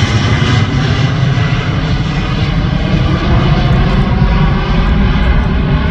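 A Boeing 737's twin jet engines pass overhead and pull away: a loud, steady rumble, with its upper hiss dulling slightly about a second in as the jet recedes.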